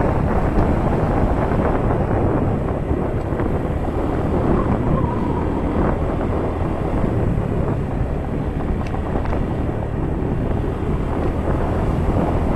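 Wind buffeting the microphone over a motor scooter's engine running steadily while riding along at speed.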